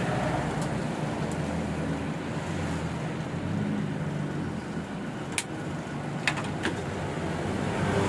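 Steady background rumble, with a few sharp clicks between about five and seven seconds in from pliers working on the wiring inside an opened microwave oven.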